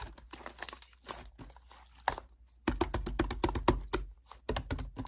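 Slime being squeezed and poked by hand, giving runs of quick clicks and crackles, busiest in the second half.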